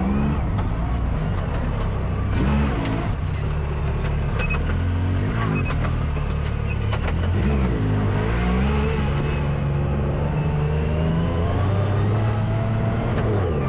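Side-by-side UTV engine running under load, its pitch rising and falling as the throttle is worked. Several short sharp clicks come through the middle.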